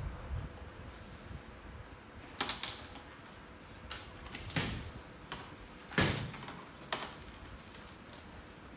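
Plastic mesh basket knocking and scraping on a tiled floor as monkeys tip it over and push it about, with a handful of sharp clatters from about two seconds in.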